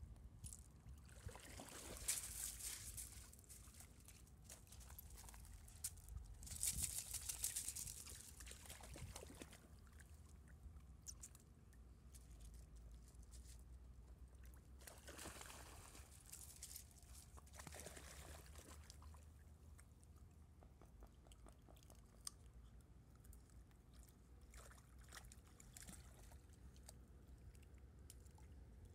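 Water splashing and sloshing as Jack Russell terriers swim and wade in shallow water, in several short bursts, the loudest about two and seven seconds in.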